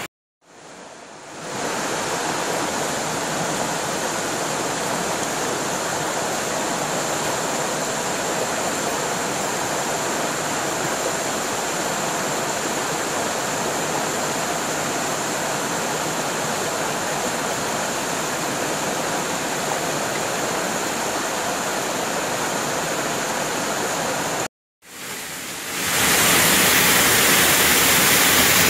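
Steady rush of a mountain stream running over rocks. After a short silent gap about 25 seconds in, a louder, brighter rush of a waterfall pouring into a pool.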